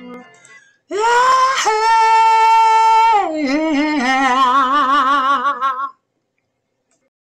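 A single voice sings a short jingle: it swoops up into a held high note, drops to a lower wavering note with vibrato and rises again, then stops suddenly about six seconds in.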